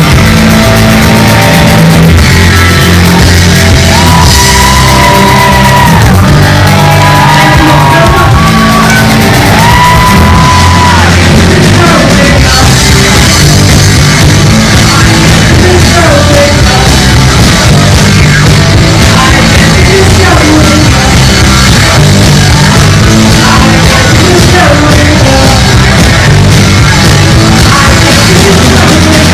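Live rock band playing loud: distorted electric guitars, bass guitar and a drum kit, with a few long held, gliding high notes between about four and eleven seconds in, and shouted singing.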